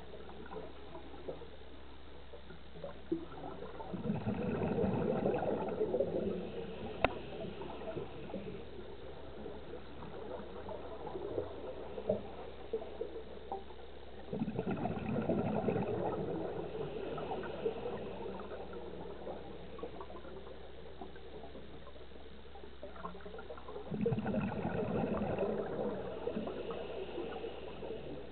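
Scuba regulator exhaust bubbling underwater as a diver breathes out: three bubbling bursts about ten seconds apart, each lasting two to three seconds, over a steady low hum, with a sharp click about seven seconds in.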